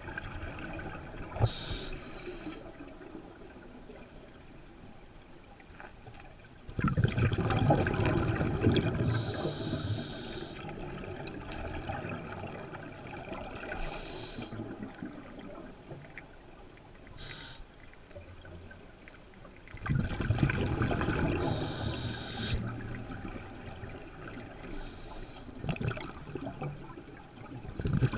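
Scuba diver breathing through a regulator underwater: short hissing inhalations several times, and two loud rushes of exhaled bubbles, about seven and twenty seconds in.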